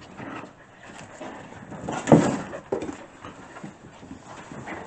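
Six-week-old puppies scuffling and rustling inside a fabric play tunnel, with a louder scuffle about two seconds in.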